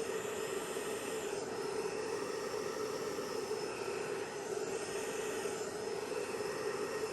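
Hairdryer running steadily, blowing wet acrylic paint across a canvas in a Dutch pour: a constant motor hum under a rush of air.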